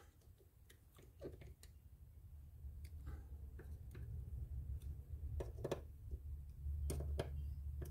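Faint scattered clicks and ticks of a screwdriver working the small frame screws of a Penn 210 levelwind conventional reel, as the screws are checked and adjusted, over a low rumble that grows louder.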